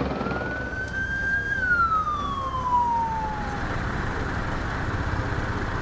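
An emergency vehicle siren sounds one slow wail: it climbs slightly, then falls away and fades about halfway through, over steady background noise.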